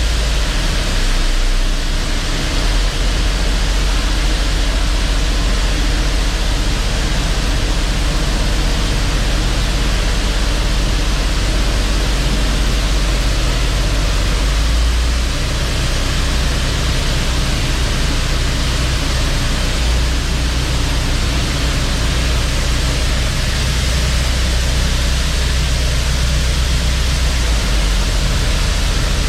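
Grain truck engine idling out of gear, a steady low hum under a loud, even rushing hiss.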